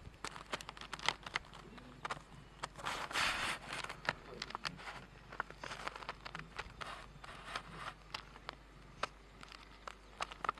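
Lions moving through dry grass: soft rustling and crackling with many small clicks, and a brief louder rustle about three seconds in.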